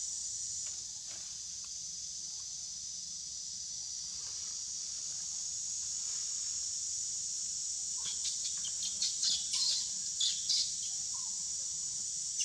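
Steady high-pitched drone of a forest insect chorus, with a cluster of short, sharp chirps about two-thirds of the way through.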